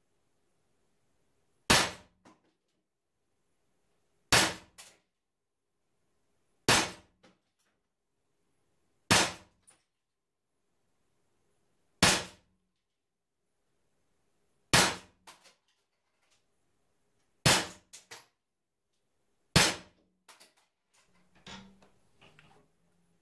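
Umarex Beretta 84 FS CO2 4.5 mm BB pistol being fired: eight sharp shots spaced two to three seconds apart, each followed by a faint tick. A few small clicks and a low hum near the end.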